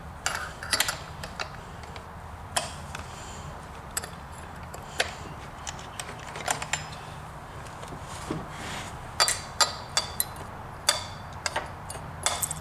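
Irregular metallic clicks and taps of hand tools and parts worked against a stuck chainsaw rim sprocket, with a closer run of clicks about nine seconds in and again near the end.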